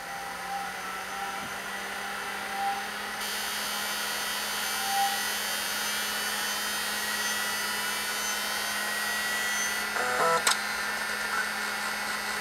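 Old full-height MFM hard drive spinning up when its power supply is switched on: a steady hum and a motor whine that slowly rises in pitch as the platters come up to speed. About ten seconds in, the head actuator gives a brief buzzing stutter and a click as it seeks. It is a normal-sounding start-up.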